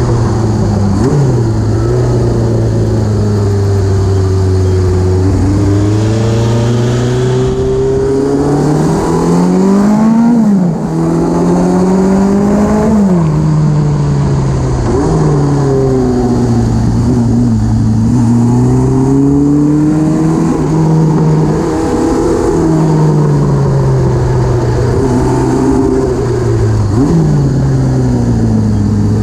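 Motorcycle engine running under way, its pitch climbing as the rider accelerates and falling back as he shifts or eases off through the bends, several times over.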